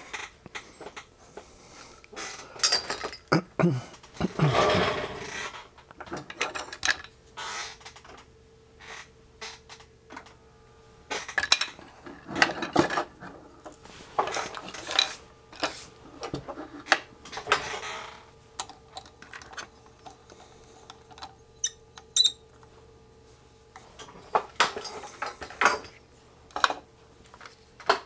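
Metal hand tools and parts clinking and clattering on a workbench, with knocks and rattles as a bare circuit board is clamped into a board holder. A faint steady hum comes on about seven seconds in.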